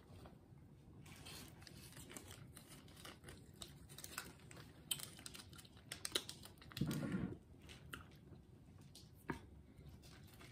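Faint eating sounds: a cooked duck wing being torn apart by hand and chewed, with scattered small clicks and crackles. A brief low, muffled sound about seven seconds in.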